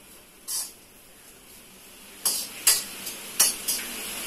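A steel ladle scraping around a steel kadhai as food is stirred while frying. There are five or six short scrapes: one near the start, the rest close together in the second half, over a faint steady hiss.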